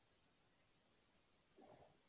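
Near silence: faint room tone, with one brief, faint sound near the end.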